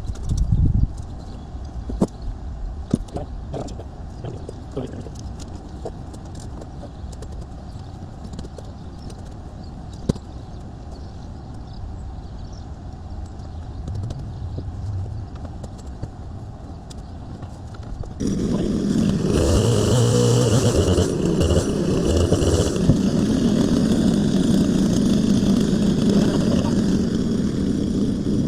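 Scattered light knocks and clicks, then, about two-thirds of the way through, an engine starts running loudly and steadily.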